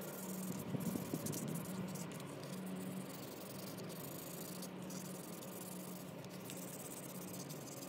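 Sandpaper rubbed by hand over the metal housing of a vintage Craftsman electric drill: scratchy sanding strokes with brief pauses between them, over a low steady hum.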